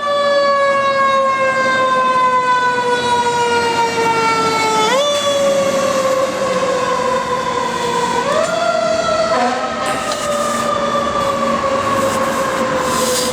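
Fire truck siren sounding: one pitched tone that slides slowly down, then jumps quickly back up about five seconds in and again about eight seconds in.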